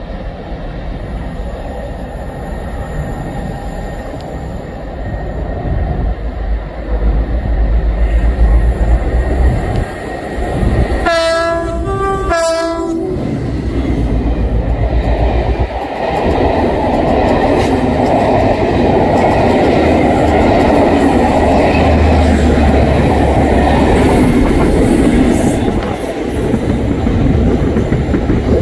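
A GBRf Class 66 diesel locomotive and its train of coaches passing. The locomotive's horn sounds two short blasts about eleven seconds in, then the coaches clatter over the pointwork while a heavy diesel drone builds and holds steady.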